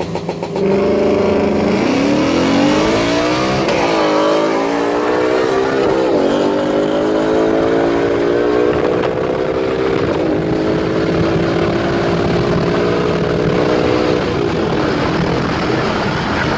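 Ford Mustang 5.0 V8 with cat delete and X-pipe at full throttle, heard from inside the cabin. Its pitch climbs through the gears, with upshifts about 4, 6 and 10 seconds in, and falls when the throttle lifts near the end.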